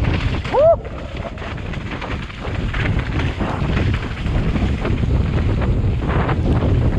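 Wind rushing over a helmet-mounted camera microphone, with the downhill mountain bike rattling and knocking as it runs fast over a muddy trail. About half a second in, a brief rising squeal cuts in and is the loudest sound.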